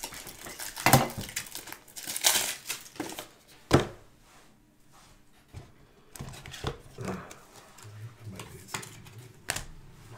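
Football trading cards being handled and shuffled on a desk: crinkling, rustling card-handling noises with a sharp tap on the desktop about four seconds in.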